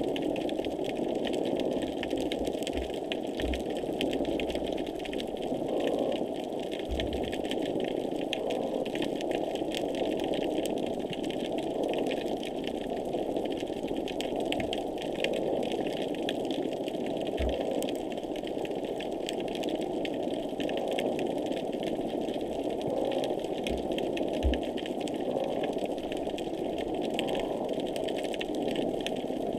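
Underwater ambient noise picked up by a hydrophone: a steady dense hiss and fine crackle of rapid clicks, with a few soft low thumps scattered through.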